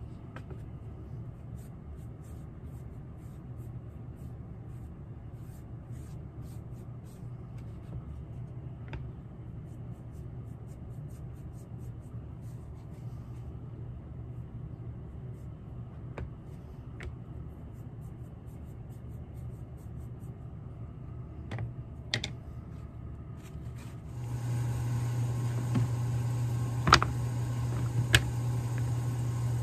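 Steady low workshop hum with faint scattered ticks and taps. About 24 seconds in, a louder hum with a high hiss cuts in abruptly, with a few sharp clicks over it.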